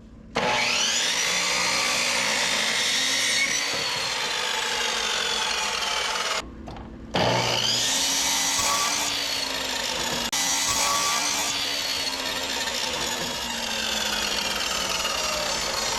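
Electric chop saw (miter saw) cutting a wooden 4x4: the motor spins up and the blade runs through the wood for about six seconds, stops briefly, then spins up again and cuts on.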